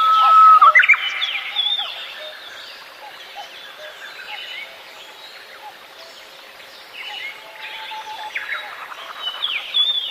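Birds chirping and whistling, many short calls overlapping, loudest in the first couple of seconds and again near the end.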